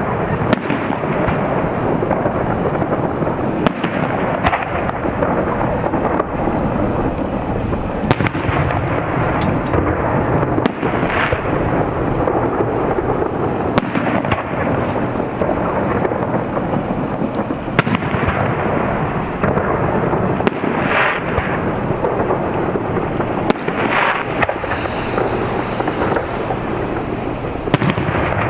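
Aerial fireworks display: shells bursting in a continuous barrage, many sharp reports over a rolling rumble.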